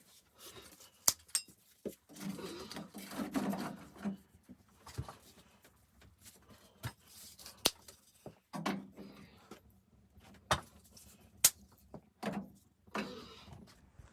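Irregular sharp knocks and clicks with rustling in between, the sound of things being handled and set down.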